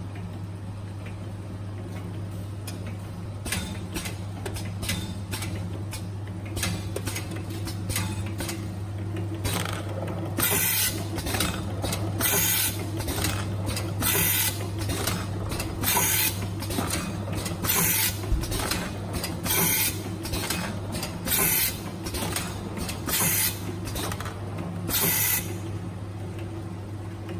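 Automatic paper-tube can seaming machine and its conveyor running: a steady hum with light clicking, joined about ten seconds in by short hisses roughly once a second as the machine cycles.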